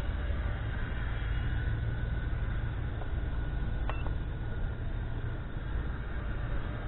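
WLtoys V911 micro RC helicopter flying, its electric motor giving a faint, slightly wavering whine over a heavy low rumble of wind on the microphone. A brief click about four seconds in.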